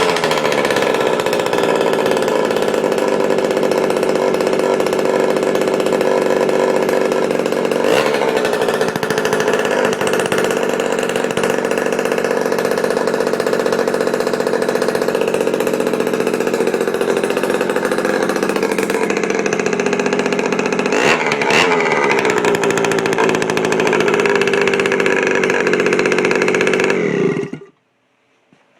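Freshly rebuilt 1966 Harley-Davidson M50's 50cc two-stroke single-cylinder engine running on its test run, with a new crankshaft and transmission and a new-old-stock carburettor. It runs steadily, with brief blips of the throttle about eight and twenty-one seconds in, and is shut off suddenly near the end.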